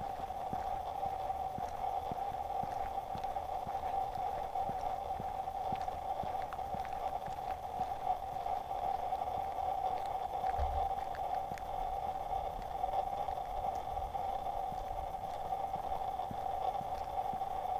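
Steady hum of a slowly moving vehicle with a camera riding on it, with light rattling clicks from bumps in the road and a brief low thump about halfway through.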